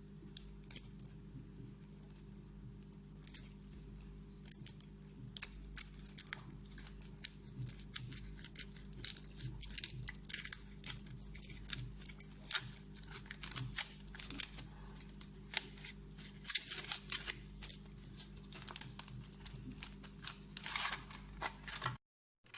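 Foil wrapper of a giant Kinder Surprise chocolate egg crinkling and tearing as it is unwrapped by hand: many quick irregular crackles that grow busier after the first few seconds.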